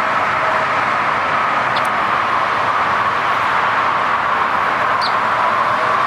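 Steady rushing background noise, with two brief high chirps about two seconds and five seconds in.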